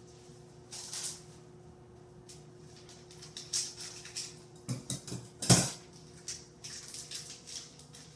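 Crinkling and rustling of a wrapper and parchment paper as a mini ice cream bar is handled into a loaf pan, with a sharp knock about five and a half seconds in.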